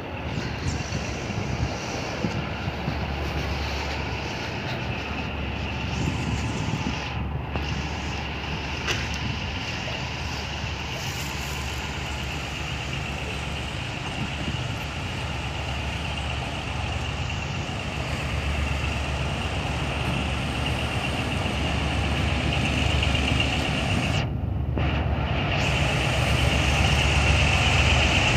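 Diesel-electric locomotives (EMD G22U) running as the train slowly approaches: a steady low engine drone that grows louder toward the end, with a steady high-pitched note above it that strengthens near the end.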